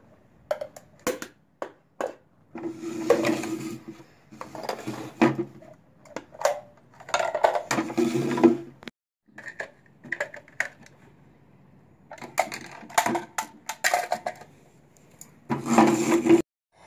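Small plastic toy wheeled trash carts clattering on a concrete floor as they are tipped, knocked over, picked up and set down: many sharp clicks and knocks, with several second-long stretches of a low humming tone mixed in.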